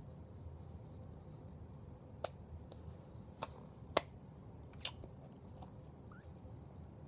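Hands and fingers knocking together while signing, making four short sharp clicks over a low steady room hum; the third click is the loudest.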